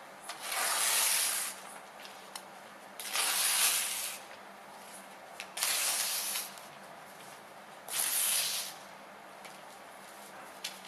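A sheet of paper torn by hand in four long rips, each lasting about a second, a couple of seconds apart.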